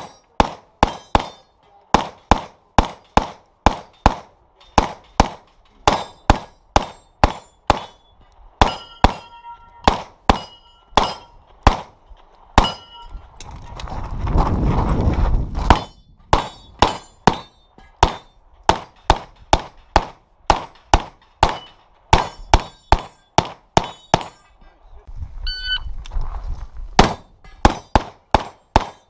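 Rapid strings of shots from Open-division competition pistols, two or three shots a second, with some hits ringing on steel targets. The shooting breaks off for about two seconds under a rushing noise about halfway through, and briefly again near the end.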